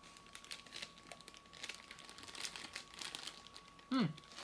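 Snack packaging crinkling as a pastry is taken out and broken into pieces, in irregular small crackles. Near the end a person gives a short falling "mm".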